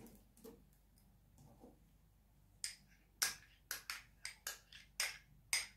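Spoon tapping and clinking against a glass bowl as sour cream is knocked off it into the bowl: a quick run of sharp taps starting about halfway through.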